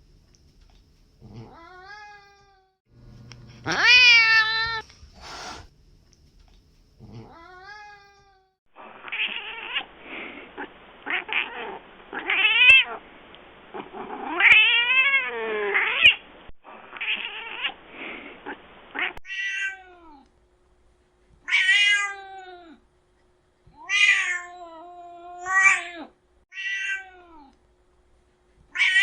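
Domestic cats meowing: a run of separate drawn-out calls that rise and fall in pitch, about a dozen in all. In the middle stretch the calls come from a duller recording with a hissy noise behind them.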